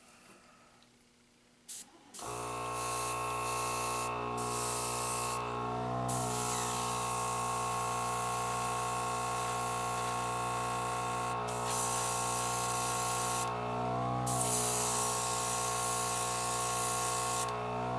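An airbrush spraying the final coat of paint onto a model car body: a steady hiss that starts about two seconds in and breaks off briefly several times, over a steady hum underneath.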